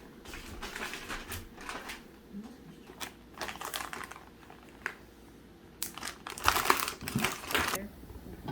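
Plastic bags crinkling and rustling in bursts as blanched corn is handled and packed for freezing; the crinkling is loudest about six seconds in.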